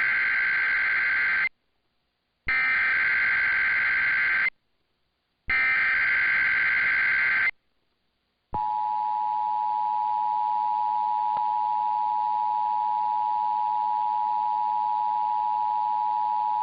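Emergency Alert System SAME header: three bursts of warbling digital data tones, each about two seconds long with a second of silence between, the first already under way. It is followed about eight and a half seconds in by the steady two-tone EAS attention signal, which announces the alert message.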